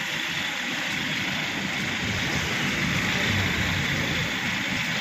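A vehicle engine running steadily under a constant hiss.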